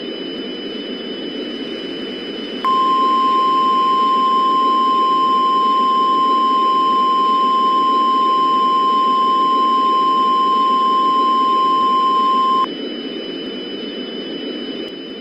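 NOAA Weather Radio warning alarm tone: one steady, high beep near 1050 Hz that starts sharply about three seconds in, holds for about ten seconds and cuts off. Underneath, a steady static hiss with faint, thin high whines.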